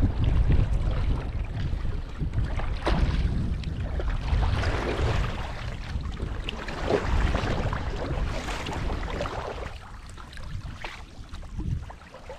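Double-bladed kayak paddle dipping and splashing through lake water in repeated strokes, with wind buffeting the microphone; the strokes die away near the end.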